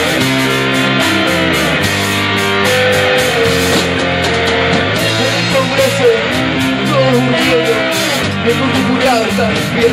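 Live punk rock band playing loud electric guitar chords with a trumpet over them, to a steady beat.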